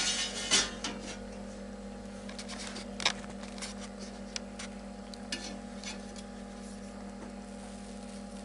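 Stainless steel clanks and scrapes: a metal lid and a long stainless spoon knocking against a keg mash tun as a wort sample is scooped from the mash, with the loudest clanks at the start and about three seconds in. A steady low hum runs underneath.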